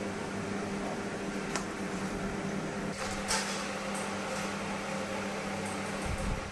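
Steady machine hum of a running appliance or fan, with a low droning tone, broken by two short light clicks; a low rumble comes in near the end.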